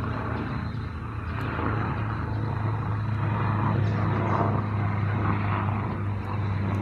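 Helicopter in flight: a steady low drone that grows louder over the first few seconds.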